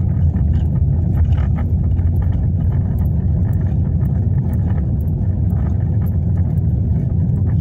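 Steady low rumble of a car's engine and tyres, heard from inside the cabin while the car drives along a street.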